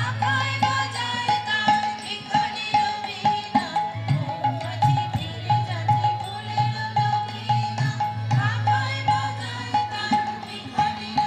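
A song with tabla accompaniment: a steady run of ringing tabla strokes with deeper bass-drum beats under a melodic vocal line.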